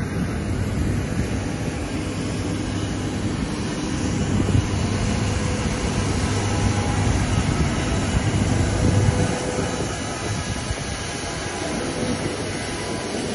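Steady running noise of aircraft and ground machinery on an airport apron: a low hum under a constant rushing hiss.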